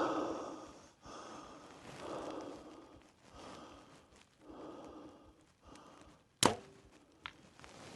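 Mathews LIFT 33 compound bow shot once, a sharp crack of the string release about six and a half seconds in, followed under a second later by a fainter click of the arrow striking the distant target. Before the shot there are soft swelling noises about a second apart.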